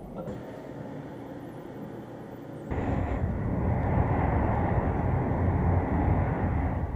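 Cabin noise inside a Keisei Skyliner express train: a low steady hum, then suddenly, about a third of the way in, a much louder, even rumble and rush of the train running, which cuts off abruptly at the end.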